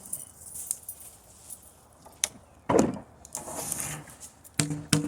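Hand plane taking a couple of shaving strokes across a hickory slab, each a short rasping swish, followed near the end by a few sharp wooden knocks with a brief hollow ring.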